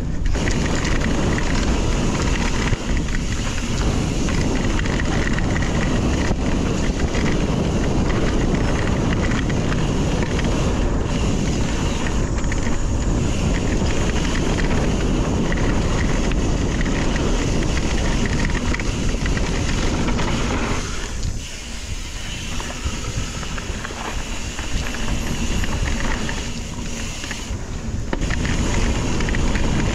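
Wind rushing over the microphone of a mountain bike rider's camera while riding, a steady noise heaviest in the lows that eases briefly about two thirds of the way through.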